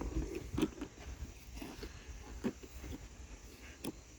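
Handling noise from a plastic tool case and its cardboard box being pulled out and moved about, with a few light knocks and taps.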